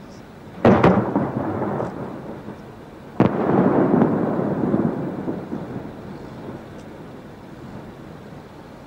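Two aerial firework shells bursting about two and a half seconds apart. Each is a sharp bang followed by a rumble that dies away over a second or two.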